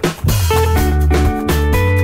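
Background music with guitar, bass and drums playing a steady beat.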